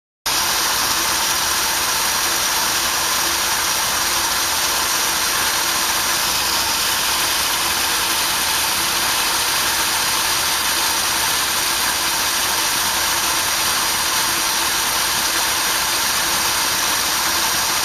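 A 1978 Ford F-250's 400 cubic-inch V8 idling roughly. This is the stumble it shows for about five minutes after starting, while its manifold vacuum sits below normal, before it smooths out.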